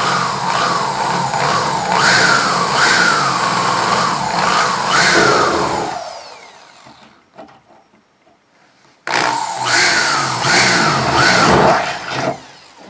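Electric drill boring out spot welds in the car's body steel, its motor whine dipping and recovering again and again as the bit bites. It runs for about six seconds and winds down, then a second run starts about nine seconds in and stops near the end.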